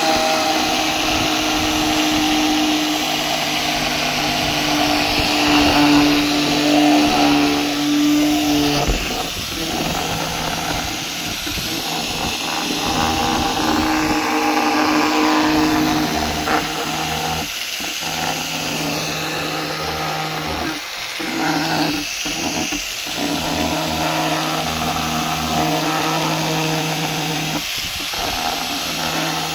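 Angle grinder fitted with a hole-cutter bit running and boring a hole through the top of a plastic water tank. Its motor holds a steady pitch, with several short drops in the second half.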